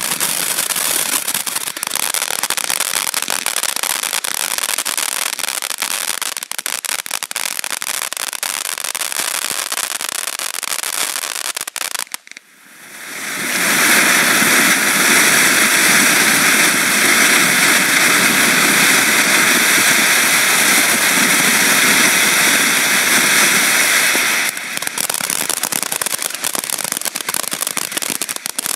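Monkey Mania Ghost Fountain, a 200-gram firework fountain, crackling densely for about twelve seconds. It drops out for a moment, then sprays with a louder, steady hiss for about eleven seconds, and the crackling returns near the end.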